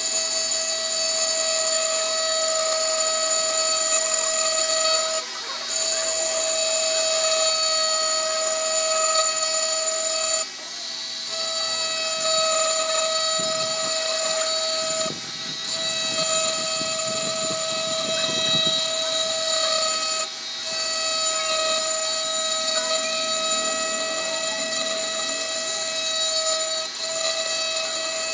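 Handheld electric engraving pen running with a steady high-pitched whine as its bit grinds into a glass bottle. The whine dips briefly about every five seconds, and a rougher scratchy grinding joins in about halfway through.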